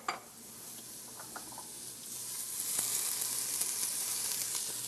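Sliced onions frying in hot oil in a cooking pot with a steady sizzle. The sizzle grows louder about two seconds in as fresh mint leaves are dropped into the oil.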